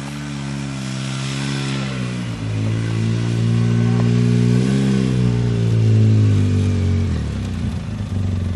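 Polaris RZR side-by-side's engine running as it drives, its pitch shifting with speed: dropping about two seconds in, rising a little near the middle, and falling lower near the end.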